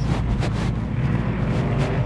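Steady low rumble of a car's engine and tyres heard from inside the cabin while driving slowly, with a few faint ticks about half a second in.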